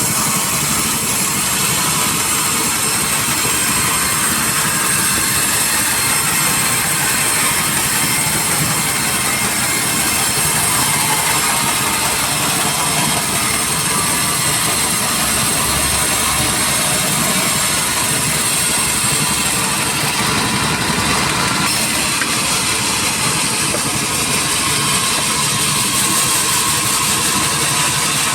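Sawmill machinery running steadily, a loud even mechanical noise with a faint high whine.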